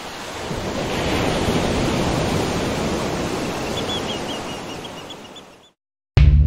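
Ocean surf washing on a beach, a steady rush that swells and then fades away, with faint high chirps in the middle. Loud music with a heavy bass beat cuts in near the end.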